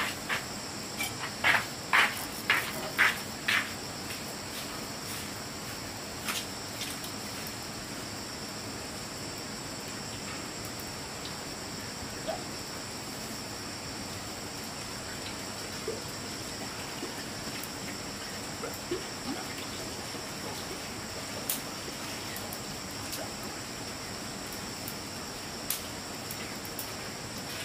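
A steady, high-pitched insect chorus. In the first few seconds there is a quick run of sharp knocks, about two a second; after that only a few faint clicks.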